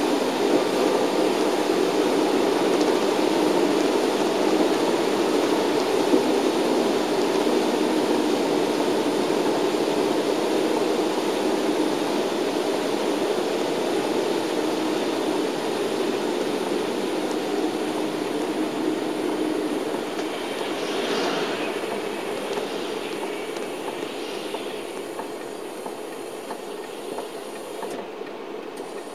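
Cabin noise of a shuttle bus driving on a wet road: a steady engine and tyre rumble. It grows gradually quieter over the last third, with a few faint higher sounds rising and falling about two-thirds of the way through.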